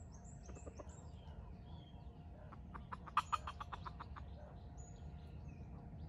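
Jungle fowl clucking: a few soft clucks early on, then a quick run of about ten louder clucks a little past halfway. Small birds chirp with short high calls throughout.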